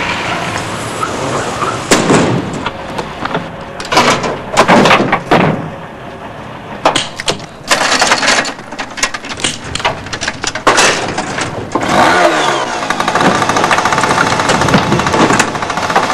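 A run of loud bangs and crashes, then a small engine starts about twelve seconds in and keeps running steadily.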